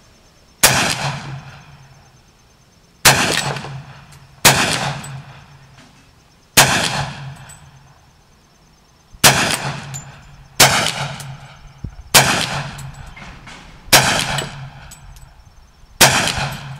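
Nine shots from a Hi-Point .40-calibre carbine, fired singly and unevenly about one and a half to two and a half seconds apart. Each is a sharp report with a ringing echo that dies away over about a second.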